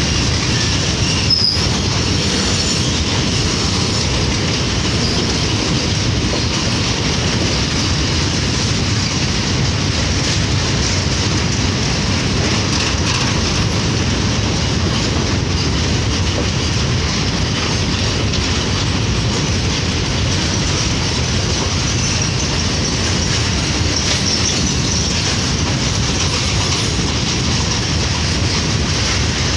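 Empty freight train of BCNA covered wagons rolling past on the rails, a steady loud rumble and clatter of wheels with some wheel squeal. There is a single sharp click about a second in.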